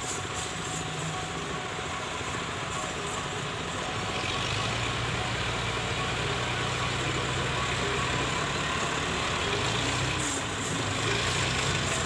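Massey Ferguson 375 tractors' diesel engines running steadily, growing louder about four seconds in.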